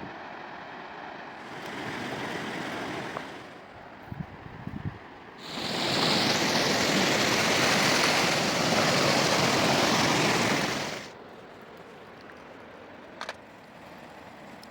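River water rushing, its level jumping up and down in abrupt steps: loudest for about five seconds in the middle, quieter near the end. A few faint knocks come about four to five seconds in, and a single tick near the end.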